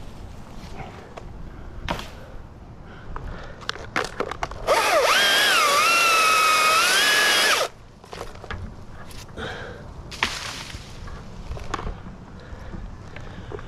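Husqvarna T540i battery chainsaw whines up to speed about five seconds in and cuts for about three seconds, its pitch dipping and rising again, then stops sharply. Quieter clicks and knocks come before and after it.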